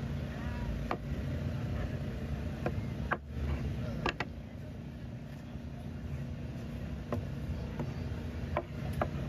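A knife chopping braised pork skin and meat on a plastic cutting board: about eight sharp, irregular knocks of the blade on the board, a quick pair about four seconds in. A steady low hum runs underneath.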